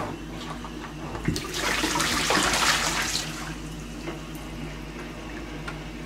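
Hot sterilising water pouring out of a plastic homebrew pressure barrel into a kitchen sink, a rushing gush that starts about a second and a half in and lasts about two seconds.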